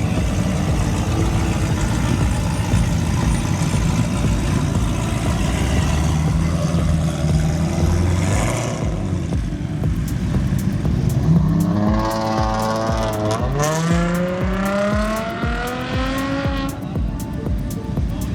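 Car engines rumbling at low revs, then one car accelerating hard about two-thirds of the way in: its engine note rises, drops back briefly at a gear change, and rises again before fading.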